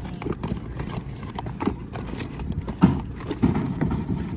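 Irregular hollow knocks and clatter of hard objects, with the sharpest knock near the end.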